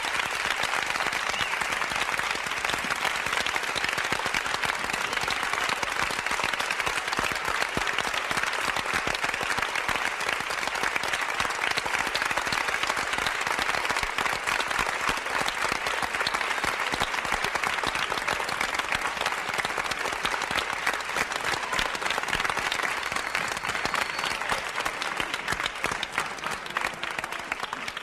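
Crowd applause: steady, dense clapping that begins to fade over the last few seconds.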